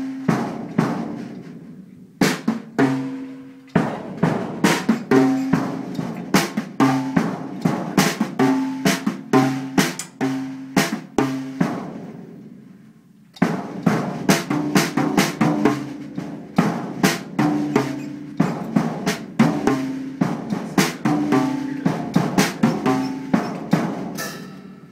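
Acoustic drum kit being played by hand with sticks: quick, irregular strikes on the drums with a ringing drum tone, breaking off briefly about two seconds in and again for about a second and a half some twelve seconds in.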